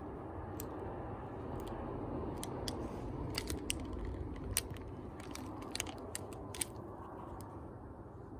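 Camera handling noise as it is moved and repositioned: a low rubbing rumble with many scattered small clicks and taps, busiest in the middle.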